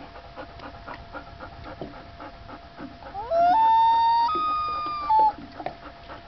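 Common loon giving a wail about three seconds in: a quick rising glide into long, pure held notes that step up in pitch, ending in a short, lower note.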